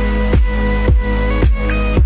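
Electronic background music with a steady beat, nearly two strikes a second, over a deep bass.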